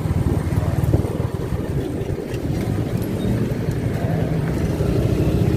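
Motorcycle engine running steadily at low road speed, a continuous low rumble heard from on the bike itself.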